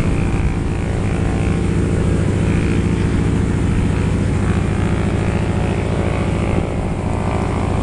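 Three single-engine propeller planes flying overhead in formation, their piston engines making a steady drone.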